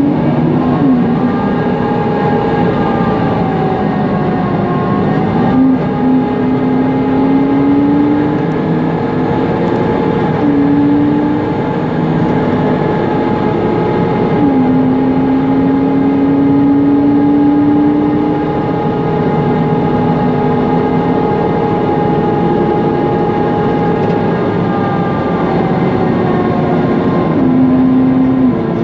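Mercedes-Benz Conecto NGT city bus under way, heard from inside the cabin: the engine note climbs slowly and drops back abruptly several times as the ZF automatic gearbox changes gear. Over it runs a steady whine from the noisy engine cooling fan.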